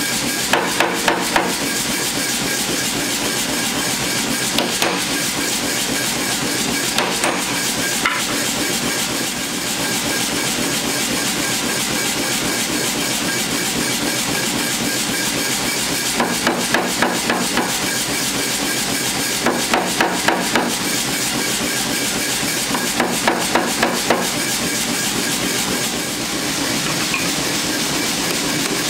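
Hammer blows forging a red-hot high-carbon steel knife blank, struck in quick bursts of four to six over a steady background noise.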